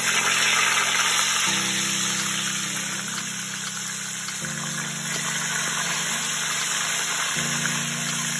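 Fish steaks sizzling as they fry in a pan of hot oil: a steady, loud hiss. Under it runs background music of held chords that change every couple of seconds.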